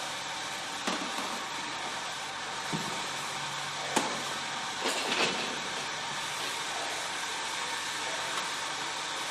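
Steady hiss of a large kitchen with steam kettles, with a few sharp knocks and clanks of large aluminium cooking pots. A low steady hum joins about three seconds in.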